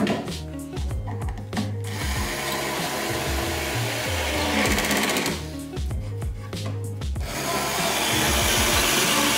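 Small cordless drill-driver running in two long pulls of about three seconds each, driving screws into plywood; the second starts about seven seconds in.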